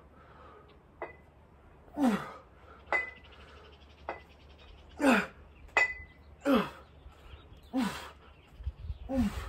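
A lifter grunts with effort on each rep of a set of 30-pound dumbbell lateral raises taken to failure: about five short grunts that fall in pitch, a second or two apart. Between them the loose cast-iron plates of the dumbbells clink with a short metallic ring, and a low rumble comes near the end.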